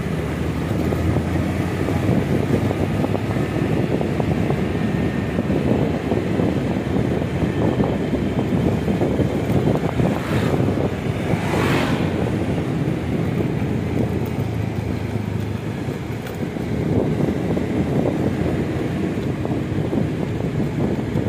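Steady vehicle rumble with wind buffeting the microphone, and two short rushes of noise about ten and eleven and a half seconds in.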